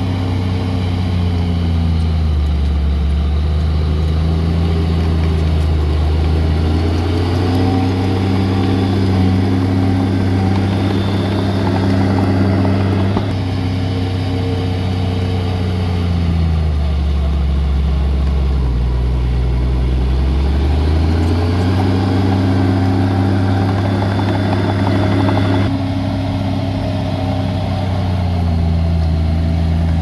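Diesel engine of a heavy earthmoving machine running steadily, its revs rising and falling; the engine speed drops low about two-thirds of the way through, then climbs again.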